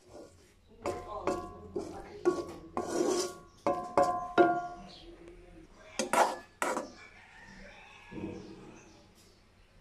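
A spatula knocking and scraping in a metal wok during stir-frying: a quick run of sharp, ringing clinks from about a second in, then a couple of louder scrapes a few seconds later.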